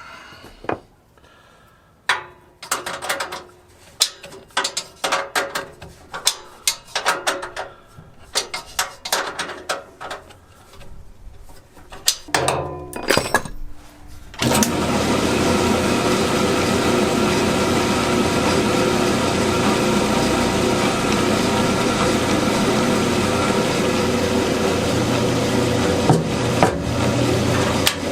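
A run of irregular clicks and knocks from hands working on the machine, then about halfway through a bandsaw is switched on and runs steadily with a low hum and a dense whir.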